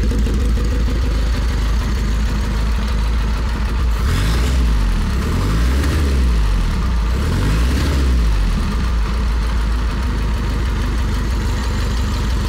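1939 Indian Model 439's air-cooled inline four-cylinder engine idling steadily, revved up and back down twice around the middle.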